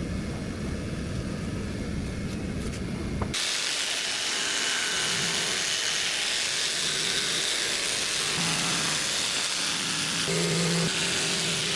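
A power tool running steadily while a wall panel is cut to a pattern. The sound switches abruptly about three seconds in, from a lower, heavier noise to a bright, even hiss.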